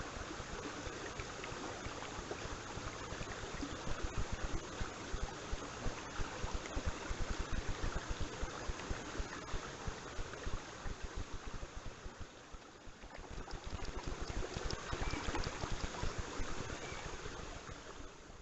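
Creek water running steadily, with irregular splashes and knocks as a plastic bottle is rinsed out in it.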